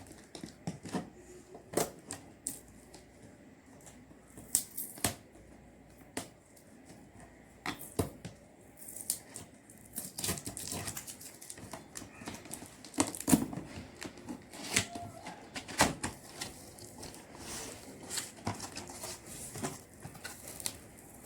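A cardboard box being opened by hand: firmly stuck packing tape picked at and torn off, and the box and its contents handled, giving irregular clicks, rips and rustles.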